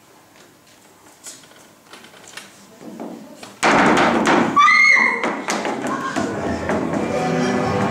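Faint taps and rustles on a wooden stage floor, then about three and a half seconds in a sudden loud rush of noise breaks in, with a short high tone soon after and steady tones carrying on beneath it.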